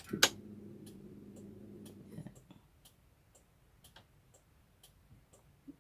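Car ignition switched on with a sharp click, then a steady low hum for about two seconds that stops, typical of the electric fuel pump priming before the engine is cranked. After it, the hazard-light flasher relay ticks steadily.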